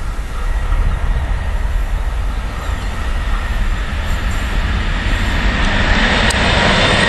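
An electric locomotive hauling a container freight train approaches and passes, its running noise growing louder toward the end. A high whine runs through it and strengthens as the train draws close, and there is a single sharp click near the end.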